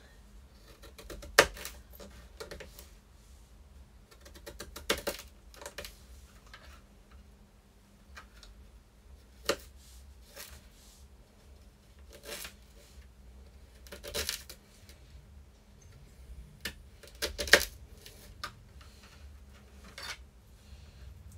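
Kitchen knife tapping and clicking on a plastic chopping board as ginger is cut into matchsticks: irregular, scattered knocks, two of them much louder than the rest.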